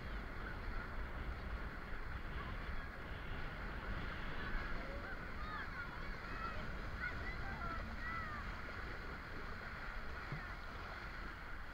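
Steady rush of water and wind past a kiteboard as it rides across the sea, with faint, short high-pitched calls in the middle.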